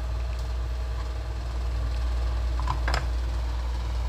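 A steady low hum under a few light taps of a kitchen knife cutting tempe on a plastic cutting board, then a short clatter about three seconds in as the knife is put down on the board.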